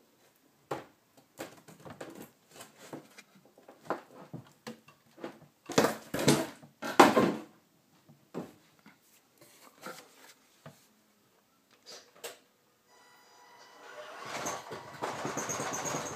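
Scattered knocks and clatter, with two louder crashes about six and seven seconds in. From about thirteen seconds a Tamiya Bruiser RC truck's electric motor and gearbox start running with a faint whine, growing louder.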